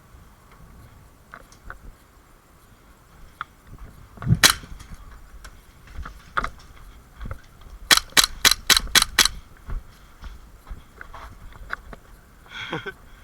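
KWC Desert Eagle CO2 airsoft pistol firing: one shot about four seconds in, then a quick string of six shots at about four a second.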